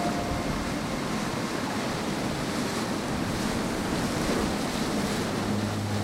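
Ocean surf washing steadily against a rocky shoreline. A low, steady hum begins near the end.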